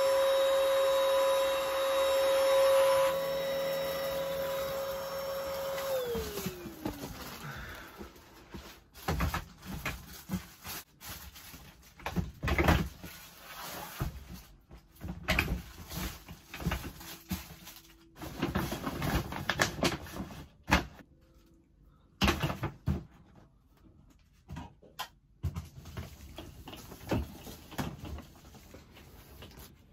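Stick vacuum cleaner's motor whining steadily, then switched off, its pitch falling away as it winds down about six seconds in. After that, irregular knocks, thumps and rustling as plastic storage boxes and a hard-shell suitcase are moved around.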